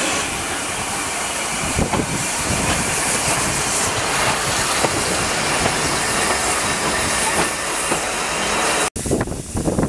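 A 3 ft narrow-gauge steam tank locomotive hissing steam as it draws its wooden coaches past at low speed, with occasional clanks and rail clatter. The sound breaks off sharply about nine seconds in and comes back quieter.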